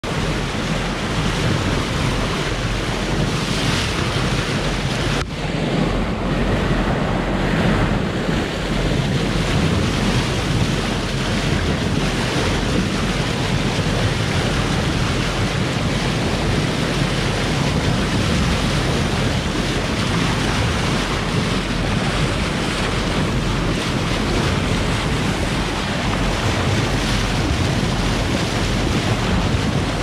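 Steady rush of seawater churning past a moving boat's hull, with wind buffeting the microphone.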